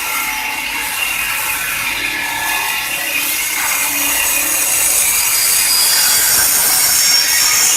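CNC stone carving machine cutting stone: the spindle's bit grinding into the stone with a steady, gritty noise that grows a little louder toward the end.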